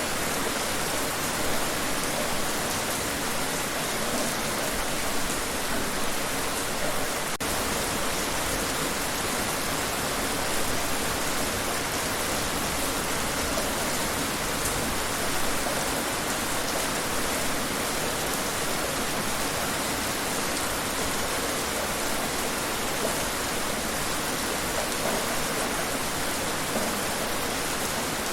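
Steady rain falling, an even hiss of many drops that neither builds nor eases.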